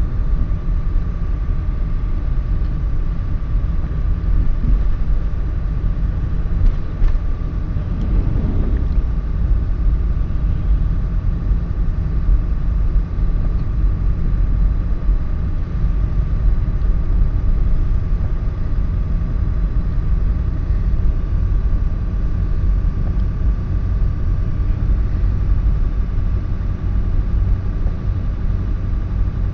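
Inside a moving car's cabin: the steady low rumble of the engine and the tyres running on a snowy, slushy road, with a faint steady high tone over it.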